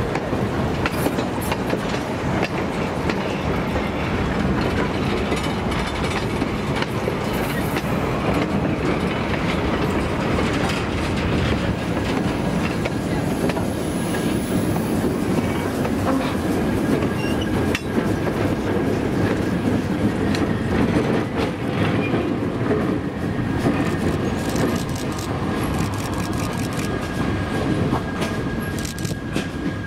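Passenger excursion train cars rolling past close by, their wheels clattering over the rail joints in a steady run of clicks. A thin, steady squeal of wheels on the rail runs through the later part.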